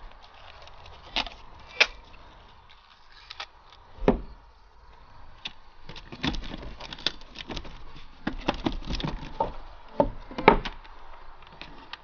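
Scattered clicks, taps and crackles of hands working a roll of packing tape and a cardboard box. A few sharper knocks stand out, the loudest about ten and a half seconds in.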